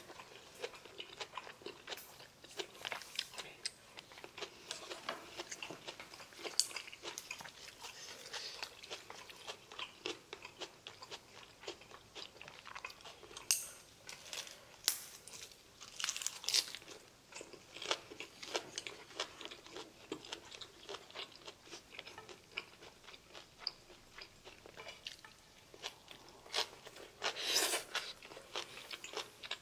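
Close-miked eating: irregular crunching and chewing of food, including a lettuce wrap of pork belly, with louder crunches about halfway through and near the end.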